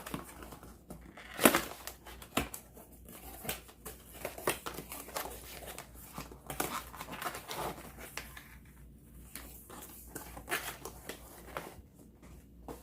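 A product box being opened by hand: irregular rustling and crinkling of packaging, with scattered scrapes and taps and one sharp knock about a second and a half in.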